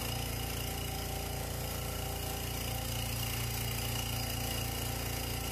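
Small vacuum pump running with a steady low hum, pulling suction on a filter flask for vacuum filtration.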